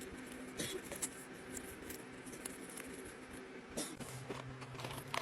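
Small objects and packaging being handled: scattered light clicks and rustling, with a few sharper clicks, over a faint steady hum.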